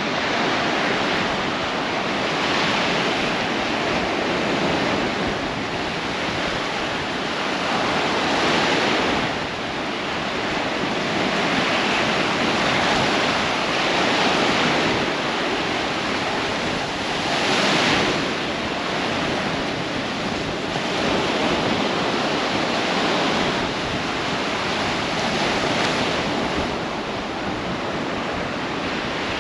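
Baltic Sea waves washing onto the shore, a steady surf hiss that swells as each wave breaks every few seconds.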